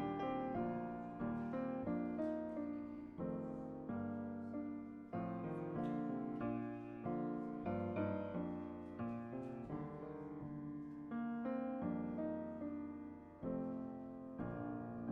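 Piano playing a steady run of chords and melody notes, each note struck and then fading.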